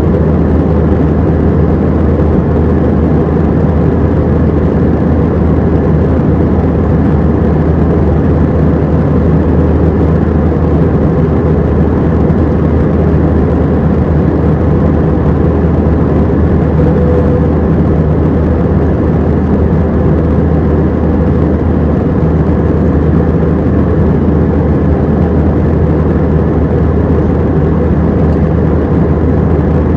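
Steady jet engine and airflow drone inside the cabin of an Airbus A319 in flight, a deep, unchanging roar.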